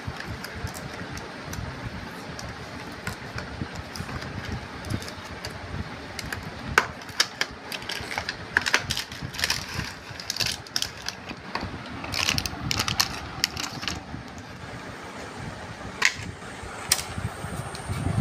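Hands handling a cardboard box and plastic packaging: scattered crinkles, crackles and clicks of a plastic bag and tray, busiest around the middle, over a steady low background rumble.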